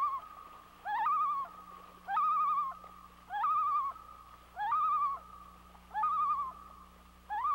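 Common loon calling: the same phrase repeated about once a second, each a quick rising note running into a wavering one.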